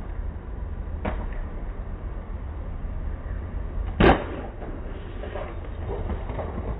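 A skater landing a jump: one loud, sharp impact about four seconds in, with a lighter knock about a second in, over a steady low rumble.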